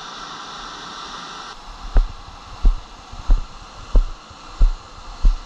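Walking footsteps on the beach, heard as short low thumps through a body-worn camera, about three every two seconds and starting about a second and a half in. Steady surf and wind hiss runs underneath.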